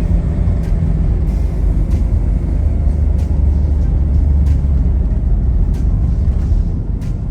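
Motor vehicle driving, heard as a steady low rumble of engine and road noise.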